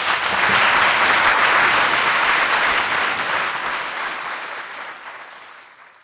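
Audience applauding, at its fullest in the first two seconds and then fading away.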